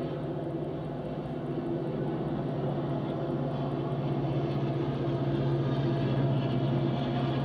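Diesel locomotive engines of a passing freight train, a steady low drone that slowly grows louder as the train draws near.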